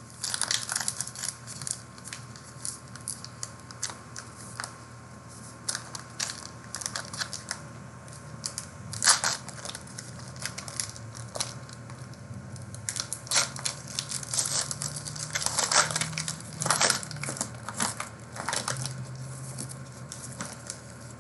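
Trading-card box and pack wrappers being torn open and crinkled by hand: a long run of irregular crackles and rips, with the sharpest tears about nine seconds in and again around sixteen seconds, over a faint low hum.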